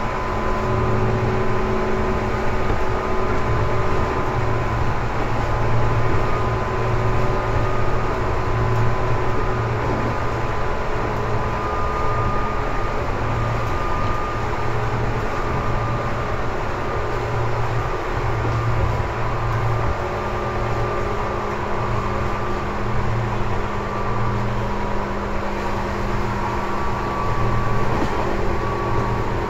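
Tobu 10000 series electric train running at speed, heard from inside the passenger car: a steady rumble of wheels and running gear with a low hum that pulses, and a faint higher tone that comes and goes.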